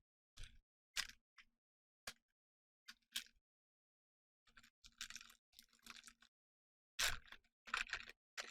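Plastic booster-pack wrapper crinkling and tearing as it is opened: a few separate crackles at first, then denser bursts of crinkling in the second half.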